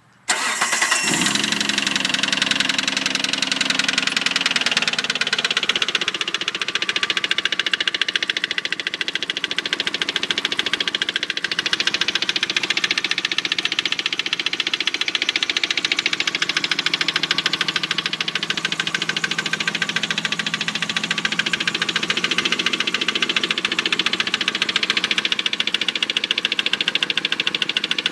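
1998 Mitsubishi 3000GT SL's 3.0-litre V6 starting, catching within about a second and settling from a higher fast idle to a steady idle after a few seconds, with the engine knock the owner is recording.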